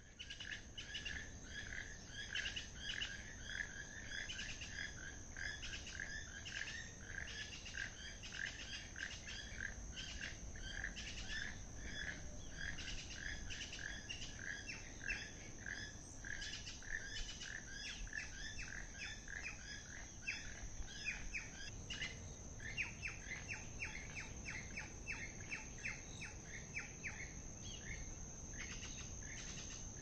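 Keel-billed toucans calling: a dense run of short, repeated calls, several a second, over a steady high insect drone.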